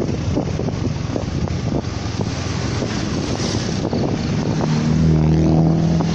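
Wind buffeting the microphone over the rumble of a moving road vehicle. Near the end a steady engine note comes up.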